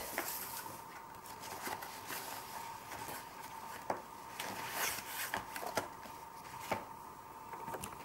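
Oil pastel sticks being handled and set down on a hard tabletop: a scatter of light clicks and knocks with short scratchy rustles, over a steady faint high-pitched hum.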